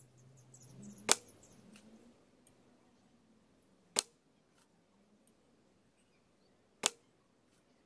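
Carbon arrows striking a foam target boss, three sharp thuds a little under three seconds apart.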